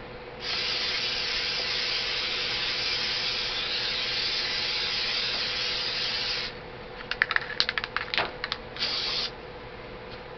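Aerosol paint stripper sprayed from a can in one long hiss of about six seconds, coating the rifle parts heavily. It is followed by a quick run of clicks and rattles and then one short final spray.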